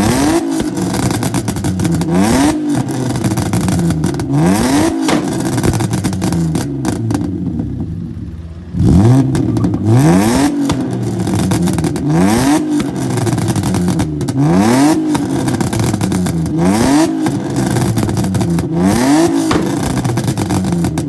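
BMW E36 325i's M50B25TU straight-six revved hard about nine times, each rev rising sharply and dropping back, with crackles and pops from the exhaust as it comes off the throttle. About eight seconds in it settles briefly, then the revving starts again abruptly.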